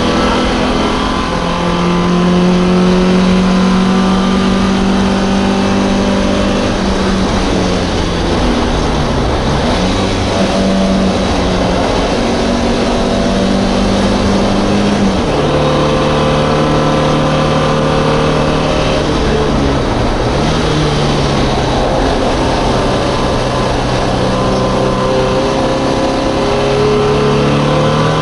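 Four-cylinder engine of an MGB race car at high racing revs, heard from on board. The note holds steady for several seconds, then dips and climbs back a few times, dropping suddenly about halfway through, as with gear changes and lifting for corners.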